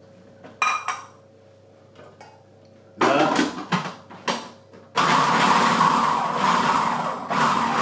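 Knocks and plastic clatter as the lid and pusher are fitted to a food processor bowl, then about five seconds in the food processor's motor starts suddenly and runs loudly, chopping chunks of pepper and cucumber.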